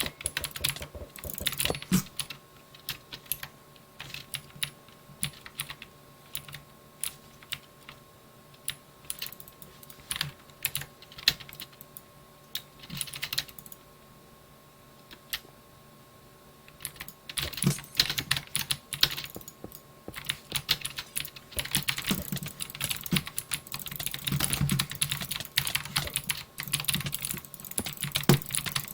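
Computer keyboard and mouse clicking. Rapid typing comes in bursts, with a long stretch of scattered single clicks in the middle before fast typing picks up again.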